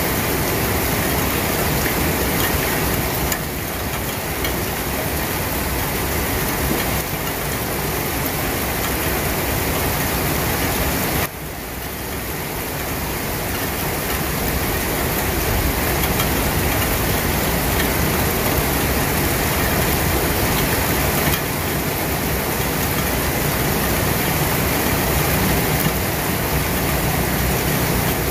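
Steady rain falling, a dense even hiss with a low rumble beneath it. It drops away abruptly about eleven seconds in and slowly builds back up.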